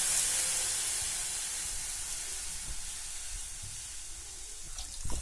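Water hissing and sizzling as it hits a hot wok of fried chicken pieces, the sizzle dying away steadily as the pan cools under the water. A short knock comes at the very end.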